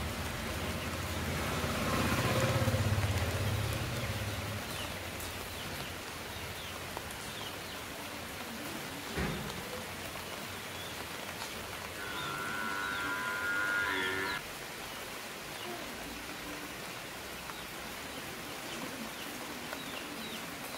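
Steady monsoon rain falling on leafy garden plants. Through the rain come small bird chirps, a low drawn-out call in the first few seconds, and a higher drawn-out animal call lasting about two seconds about halfway through.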